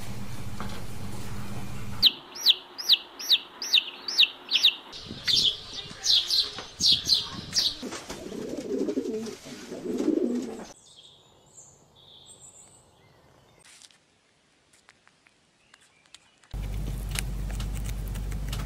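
Rapid high chirping, about three sharp downward chirps a second, followed by a feral pigeon cooing twice. A steady low hum comes before the chirping and returns near the end after a quiet spell.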